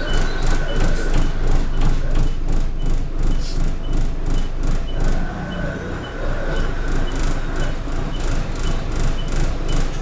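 Alexander Dennis Enviro200 bus under way, heard from inside: a low engine and road rumble with rattling, and a high turbo whine that fades out about two seconds in and comes back about halfway through. A faint, regular ticking runs underneath.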